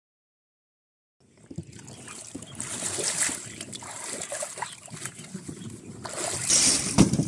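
Water sloshing and splashing as a person wades through shallow muddy water pushing a plastic crate, starting about a second in after dead silence, with a heavier splash near the end.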